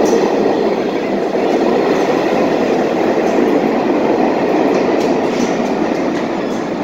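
Vintage Redbird New York City subway train pulling out of an underground station, its steady rolling noise slowly fading as the last car heads down the tunnel.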